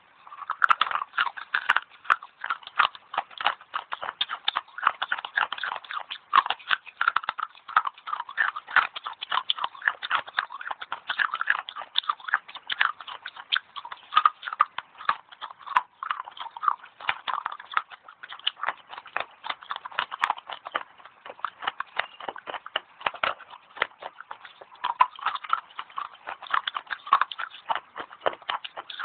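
Fast crunching of dry edible clay being bitten and chewed, a rapid, uneven run of sharp crisp crackles with no pause.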